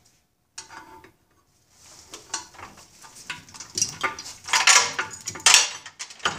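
Metal clanking and rattling, starting about two seconds in and growing louder, as the 1978 Johnson 115 HP outboard powerhead, hanging from a hoist chain, is rocked by hand to work it free of a stuck stud.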